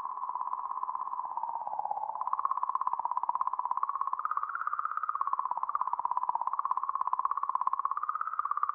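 Sonified 'singing' of comet 67P/Churyumov–Gerasimenko: oscillations in the magnetic field around the comet, caused by its interaction with the solar wind, recorded by the Rosetta spacecraft and sped up into audible sound. It is a mid-pitched electronic tone with a fast flutter, wavering slowly up and down.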